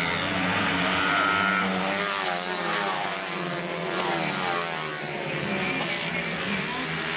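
Small CG-class racing motorcycles running hard. Their engine notes rise and fall as they accelerate through a bend and pass.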